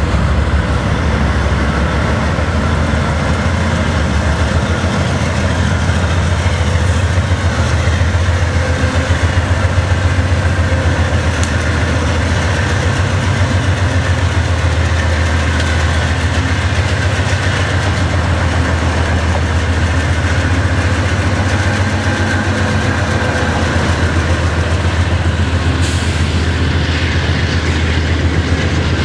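A long CSX freight train passing close by: its GE Dash 8-40CW diesel locomotives go by at the start, then the freight cars roll past in a steady rumble of wheels on rail.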